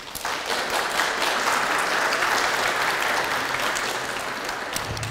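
Audience applauding: dense clapping that builds within the first second and slowly tapers toward the end.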